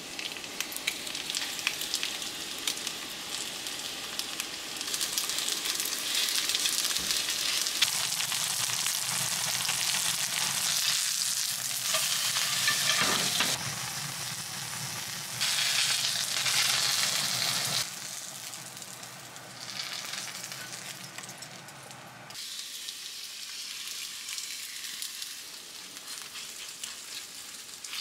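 Chijimi batter with shrimp and green onion sizzling in hot oil in a frying pan, with a spatula scraping the pan as the pancake is turned. The sizzle is louder and softer in stretches that change abruptly.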